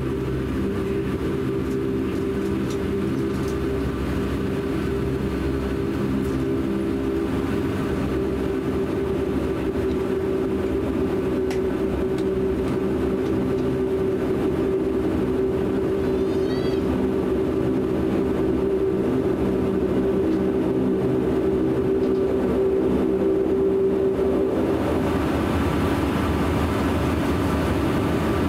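Cabin sound of a De Havilland Canada Dash 8 Q400 turboprop taxiing: its Pratt & Whitney PW150A engines and propellers drone steadily with a hum of several held tones. Near the end the drone shifts and grows a little louder and broader.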